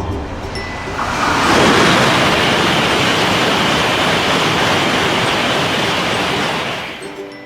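A train passing: a loud, even rushing noise that swells up about a second in, holds steady, and dies away near the end.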